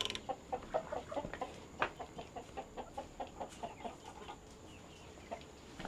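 Chicken clucking in a quick, even run of about five clucks a second, stopping about four seconds in.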